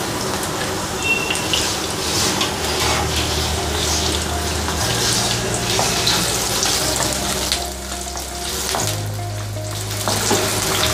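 Sliced onions sizzling and crackling in hot mustard oil in a wok, stirred with a wooden spatula partway through.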